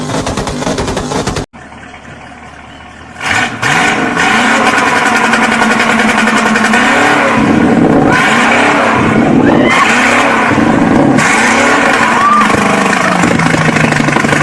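Sports car engine and exhaust: a rapid clattering run cuts off after about a second and a half. A few seconds in, an engine starts loudly, is revved several times with the pitch rising and falling, and settles to a steady idle near the end.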